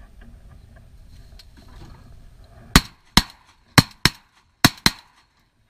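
A volley of shotgun fire from three hunters: six sharp blasts in about two seconds, in three quick pairs, starting a little under three seconds in.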